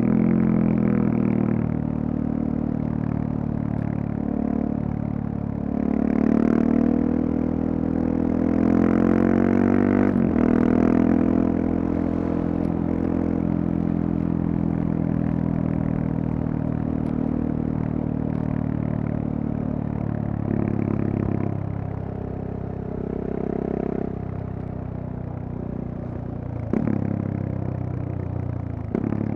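KTM 690 Duke's single-cylinder engine through a Leovince decat pipe and slip-on, revving up twice early on with a break in pitch between, then holding a steady pace. It drops lower and quieter in the last third, with a couple of sharp clicks along the way.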